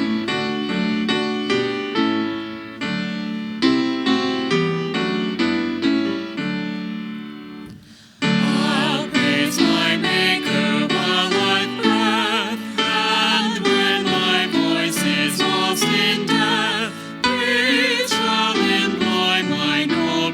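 Piano playing a slow introduction of repeated chords; about eight seconds in, a singer with a strong vibrato comes in and sings over the piano accompaniment.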